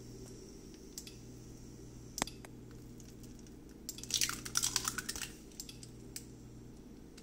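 Eggs being cracked into a hot non-stick frying pan: a sharp tap about two seconds in, then about a second of crackling about four seconds in as the second egg is broken open and drops into the pan. A faint steady hum runs underneath.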